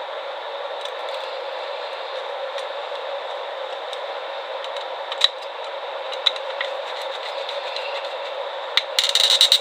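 Small clicks of wire and screw terminal being handled while a wire is fastened to a lamp holder, over a steady background hiss; a short rattling clatter near the end.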